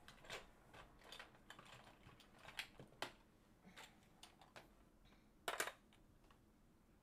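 Small plastic zip bags being handled and shuffled, giving faint crinkles and scattered light clicks, with a sharper double click about five and a half seconds in.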